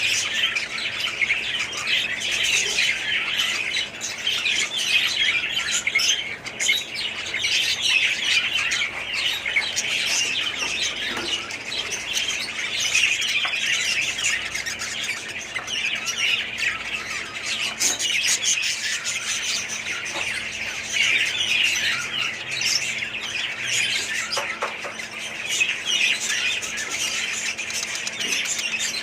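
A large flock of budgerigars calling all at once, a dense unbroken chatter of many overlapping calls.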